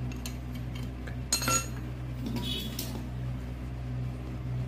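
Light metallic clinks of a gas stove's burner jet and fittings being handled and screwed in by hand: two short clinks with a brief ring, about a second in and halfway through, over a steady low hum.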